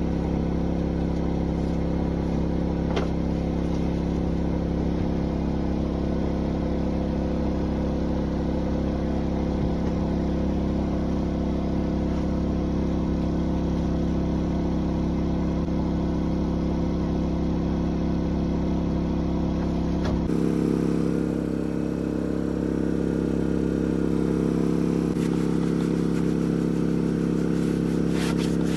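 An engine running steadily at constant speed, a level drone that does not rise or fall. About 20 seconds in the recording cuts and a similar steady engine drone carries on.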